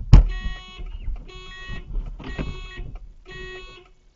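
Car alarm going off, sounding a pitched electronic tone in repeated bursts of about half a second, roughly one a second, set off by children climbing on the car's hood. A loud knock comes right at the start.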